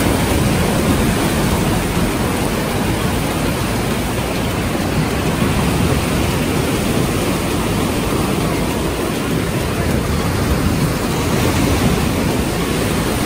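Steady surf on a sandy beach: small waves washing and breaking onto the shore as a continuous, even noise with no pauses.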